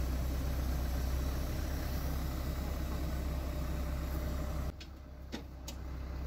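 Fire truck engine running steadily at a low hum while it drives the aerial ladder platform. The hum drops away suddenly about four and a half seconds in, and a couple of short clicks follow.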